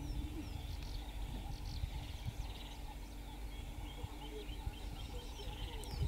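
Birds chirping and trilling over a steady low outdoor rumble with a faint constant hum.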